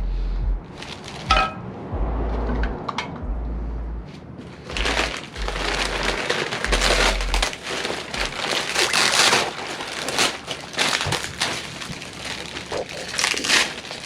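Packaging being pulled off and handled: irregular crinkling and crackling, busier in the second half.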